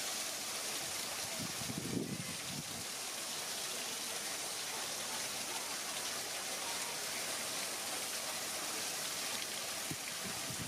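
Steady hissing, rushing background noise, with a brief low murmur about two seconds in.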